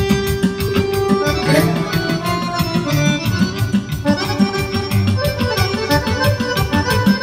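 Chromatic button accordion playing a fast kolo dance tune, with a quick steady beat behind it.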